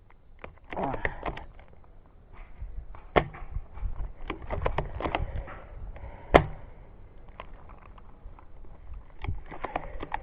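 Airsoft rifle firing single shots, with two sharp, loud cracks about three seconds apart among many lighter clicks and knocks.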